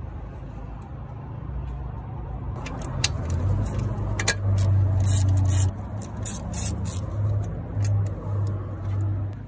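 Socket ratchet clicking in short, irregular bursts as bolts are worked loose on an engine-bay bracket, over a steady low hum.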